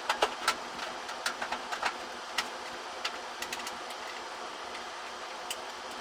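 Sharp clicks and light knocks of a PC case and its parts being handled during reassembly. A quick cluster comes in the first couple of seconds, then a few scattered clicks, over a steady background hiss.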